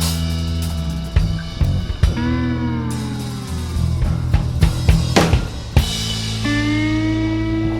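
Background music: a drum kit beat under a pitched melody whose held notes bend, sliding down around two seconds in and rising into a long held note near the end.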